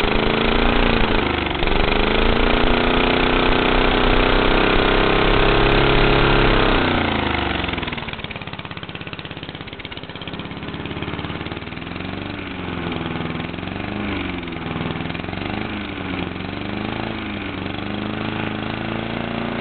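Tecumseh lawnmower engine with a dual exhaust pipe running loud at high revs, then dropping back about seven seconds in to a lower, uneven speed whose pitch rises and falls every second or two. The owner says the carburettor is bad.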